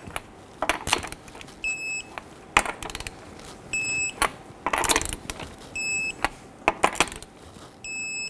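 Digital torque wrench beeping as each lug nut reaches 100 ft-lb: four short high beeps about two seconds apart. Between them come metallic clicks and clinks of the socket going on and off the lug nuts.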